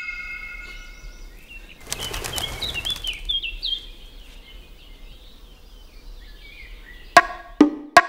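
A brief flutter of wings, then a bird chirping in short, quick, falling notes for a few seconds. Two sharp knocks near the end.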